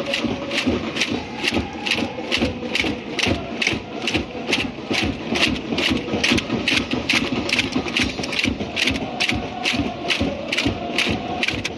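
Football supporters singing a chant in unison over a steady beat of about three hits a second.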